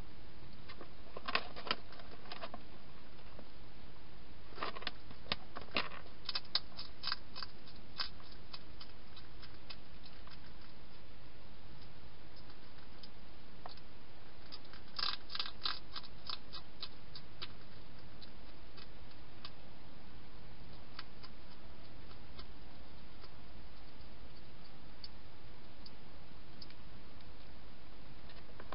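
Hedgehog crunching dry food, in three bouts of quick sharp clicks with a few single crunches between, over a steady hiss.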